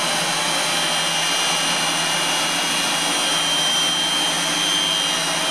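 GEA Westfalia DA 100-06-117 nozzle separator (disc-stack centrifuge) running at speed: a steady rushing whir with several constant high-pitched whining tones over it.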